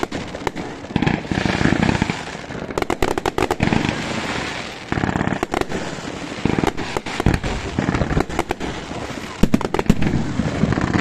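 Firecrackers going off, dense runs of sharp cracks in bursts with short lulls between them.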